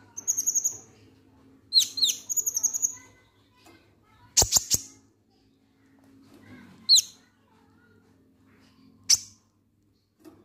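Kolibri ninja (konin) sunbird calling in short bursts of high, rapid chirps and sharp downward-swept notes, the 'ngek ngek' call used as a lure for other birds. A few sharp clicks come about halfway through.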